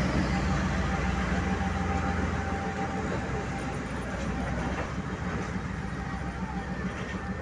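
ČSD class T679.1 "Sergej" (M62) diesel locomotive running under its two-stroke V12 engine as it hauls a train away. The low engine rumble is loudest at first and slowly fades as the locomotive pulls off, with the wagons rolling by on the track.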